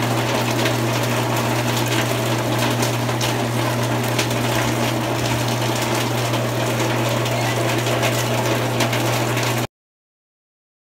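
Rain falling on corrugated metal roofs, an even hiss with many small pattering hits, over a steady low hum. It cuts off abruptly near the end.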